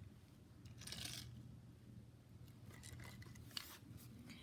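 Faint, short scraping and rustling as small die-cast toy cars are handled and set down in a row on a play mat, a few separate scrapes over a low steady hum.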